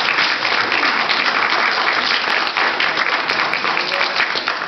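Applause: many people clapping together in a dense, steady patter.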